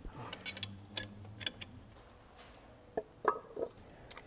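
A few light metal clicks and clinks of camshaft timing parts being handled and fitted by hand, a cluster in the first second and a half and a few more about three seconds in.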